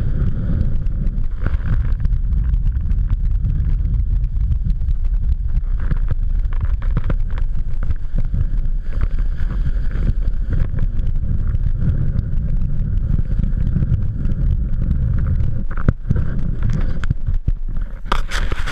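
Wind buffeting an action camera's microphone during a fast downhill run on snow, a steady low rumble with the hiss of sliding over the snow underneath. A few sharp knocks come near the end as the camera tips over.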